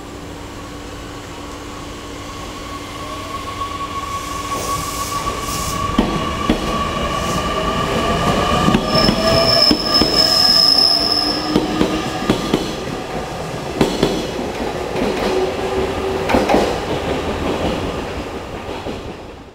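JR Kyushu 813 series electric multiple unit running past along the platform, growing louder to a peak halfway through and then fading. Its electric motor whine rises in pitch as it gathers speed, over rail-joint clicks, with a high wheel squeal as it passes closest.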